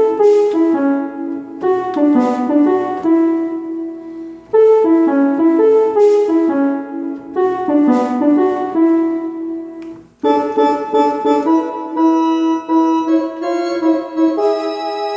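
Korg Triton Extreme keyboard workstation playing a melody over chords in a piano-like voice, with the same phrase played twice. About ten seconds in it breaks off for a moment, then carries on with a brighter sound of longer, held notes.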